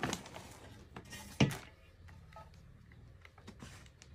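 Household handling noises while flour is scooped into an enamel washbasin: plastic bags rustling and scattered light clicks and knocks, with one louder knock about one and a half seconds in.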